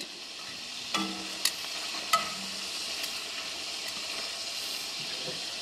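Steady sizzle of venison pieces frying in a skillet, with a few light clicks and knocks in the first couple of seconds.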